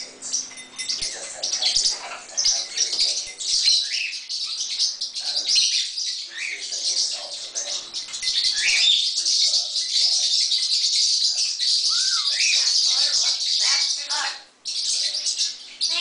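Pet parrots chirping and twittering continuously, a dense high-pitched chatter with short sliding calls mixed in.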